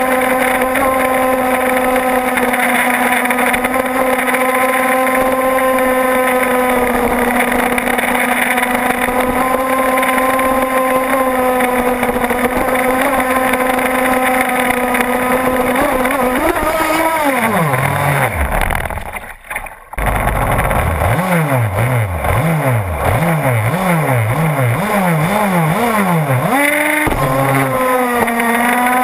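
RC boat's small single-cylinder engine running at a steady high speed, then winding down in pitch and cutting out. It then rises and falls in pitch in repeated revs before settling back to a steady high speed.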